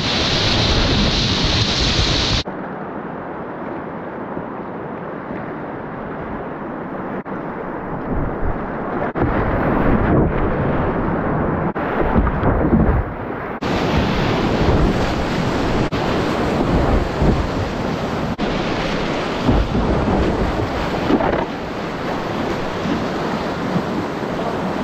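Whitewater rapids rushing and splashing close by as a kayak runs through them. The sound turns dull, losing its hiss, about two seconds in and opens up again about fourteen seconds in.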